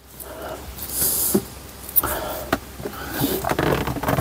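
Hands working on the moped's light switch and wiring: several sharp clicks and knocks mixed with rustling, as the switch is tried and gives no light.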